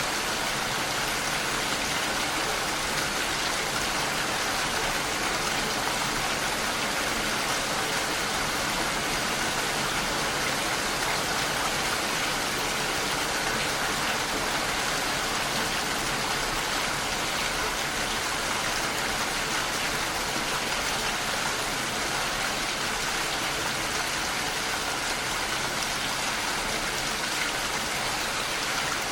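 Steady rain falling without a break, an even hiss of drops with no thunder or other events.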